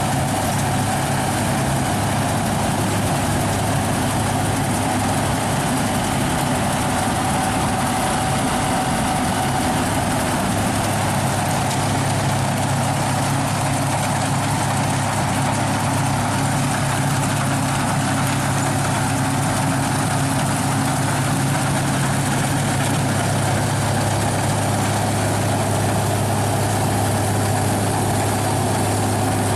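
Claas Dominator 106 combine harvester running steadily, its engine and machinery holding an even, unbroken drone.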